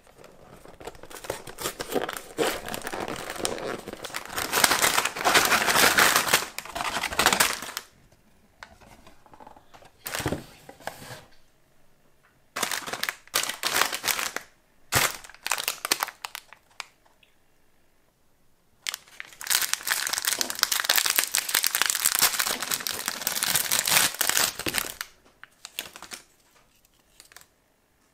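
Plastic-wrapped fortune cookies rustling and crinkling as they are taken from a cardboard box and one wrapper is pulled open. The crinkling comes in two long stretches with scattered short bursts between them.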